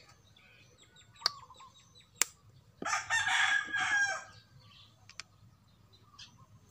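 A rooster crowing once, loud and about a second and a half long, starting near the middle. Two sharp clicks come just before it.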